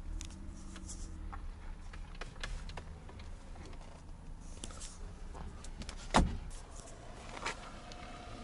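Light clicks and knocks of hands handling the interior of a Lada 2107, with one sharp knock about six seconds in and a smaller one about a second later.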